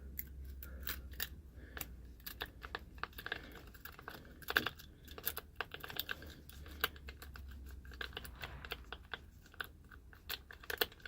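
Lock-picking tools working inside the cylinder of a Weiser knob lock: irregular light metallic clicks and scrapes, several a second, as the pins are picked.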